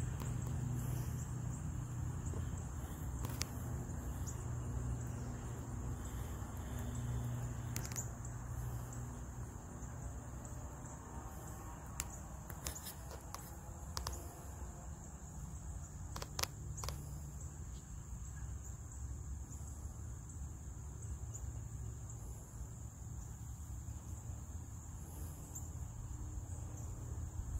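A steady, high insect chorus of the cricket kind, with a low rumble underneath and a few sharp clicks scattered through, most of them in a cluster about halfway in.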